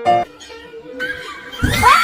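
A brief musical note at the start, then, about one and a half seconds in, a loud rising squeal with low thumps under it.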